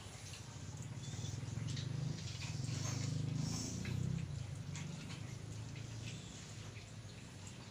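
Wet cats licking and grooming their fur, with many small sharp licking clicks. A low hum swells about a second and a half in and fades out after about four seconds.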